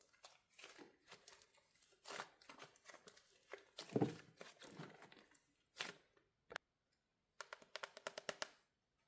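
Wax shell on a soft soap squishy cracking and crackling as it is squeezed, in scattered crunches loudest about four seconds in, then a quick run of small clicks near the end.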